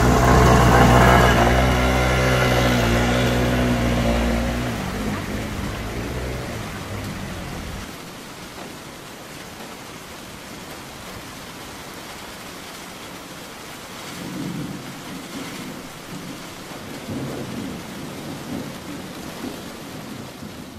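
A motor scooter's engine running close by as it rides through floodwater, fading away over the first five seconds or so, followed by a steady hiss of rain and water.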